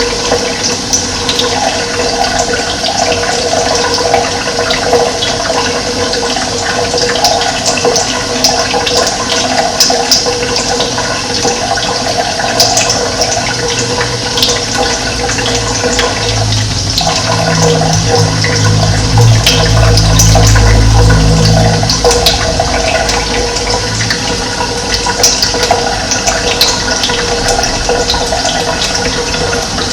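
Running water, a steady rushing flow. Around the middle a low hum swells up and fades away again.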